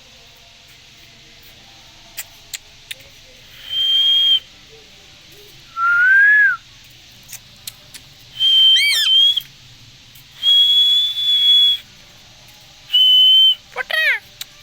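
Indian green parrot whistling: about five separate pure whistled notes, most held on one steady high pitch, one lower and rising. The notes end in a few quick falling sweeps near the end, with a few sharp clicks before the first whistle.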